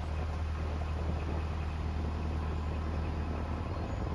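Narrowboat's diesel engine running steadily as the boat moves along, a low even drone.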